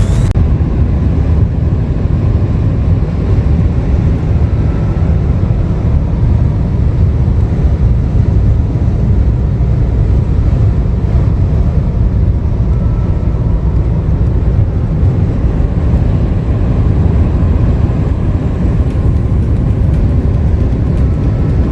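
Steady road and engine rumble of a moving car heard from inside the cabin, deep and unbroken.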